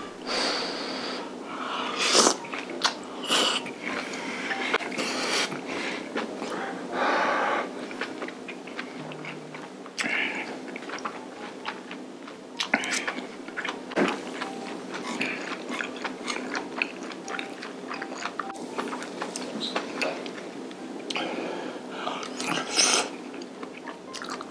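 Close-up eating sounds: chewing and smacking on mouthfuls of spicy stir-fried webfoot octopus, beef brisket and rice, with many irregular wet clicks.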